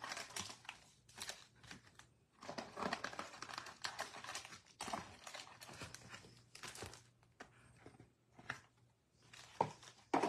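Sealed foil trading-card packs handled and shuffled in the hands, their wrappers crinkling in irregular bursts, with a couple of sharper knocks near the end as the stack is set on the table.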